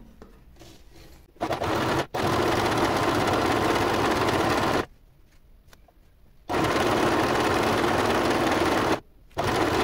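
Cobra domestic electric sewing machine stitching a seam. It starts about a second and a half in and runs in three spells, stopping for about a second and a half midway and briefly again near the end.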